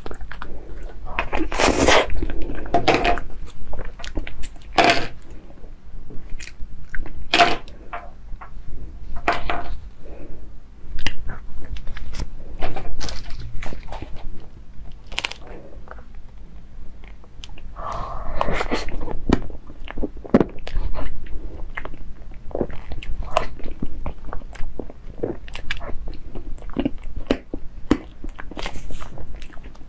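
Close-miked eating-ASMR handling of a cream cake: a string of sharp clicks, taps and rustles from gloved hands pulling off plastic toppers, then a fork digging into sponge and whipped cream, with mouth and chewing sounds.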